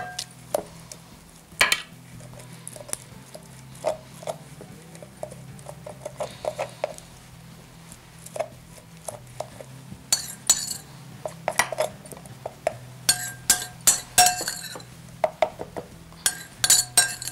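Kitchen utensils clinking and tapping against glass bowls and a glass baking dish, in scattered sharp clinks, some ringing briefly, that come more thickly in the second half. A faint steady low hum runs underneath.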